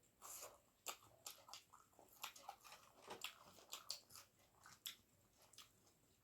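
Faint close-up eating sounds: chewing with wet mouth smacks and small clicks, several a second.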